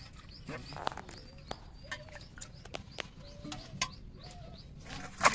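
Outdoor background of birds chirping and faint voices, with scattered light clicks. A single loud sharp knock comes near the end.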